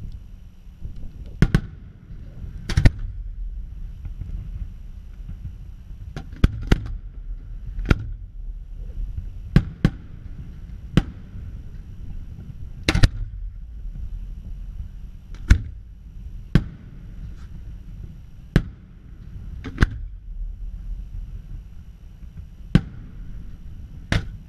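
Aerial firework shells bursting: more than a dozen sharp bangs at uneven intervals, some in quick pairs, over a steady low rumble.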